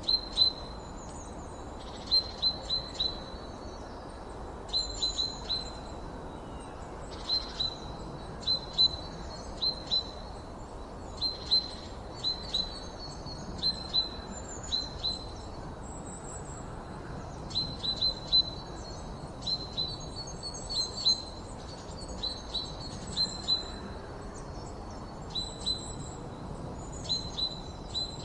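Songbirds chirping: short, high notes in quick clusters of two to four, repeated every second or two, with fainter, higher chirps between them, over a steady low background hiss.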